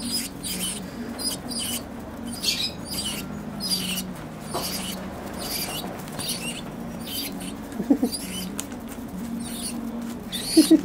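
A pigeon pecking seed out of a plastic bag, the bag crinkling and rustling in quick irregular strokes, over a steady low hum. A couple of short low vocal sounds come about eight seconds in and again near the end.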